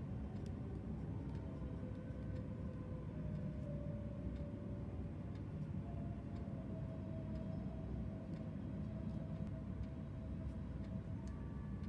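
Light scattered clicks and taps of journaling supplies being handled, over a steady low hum and faint sustained notes of soft background music.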